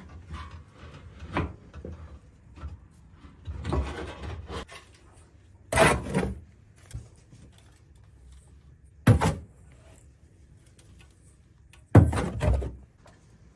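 Three loud knocks with short scraping tails, about three seconds apart, amid quieter rustling and scraping.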